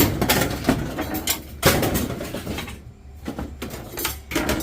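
Irregular knocks, clatter and rustling of scrap items and bags being handled and sorted, with a sharp knock about a second and a half in.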